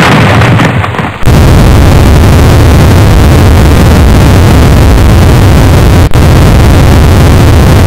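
Explosion sound effect: a sudden, very loud blast, then a continuous loud roar of noise with heavy rumble, broken by a brief drop about six seconds in.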